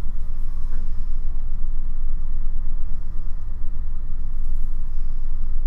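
Steady low rumble of background noise from the recording, with a faint steady hum above it.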